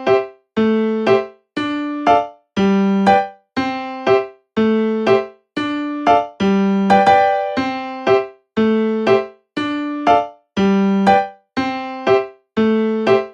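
Background music: a simple looping tune of pitched notes, a longer note followed by a short one about once a second, each pair broken off by a brief silence.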